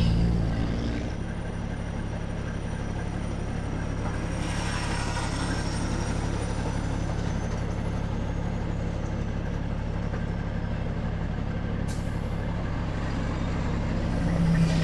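Peterbilt 379 tractor's diesel engine running steadily while pulling a loaded flatbed, getting louder near the end.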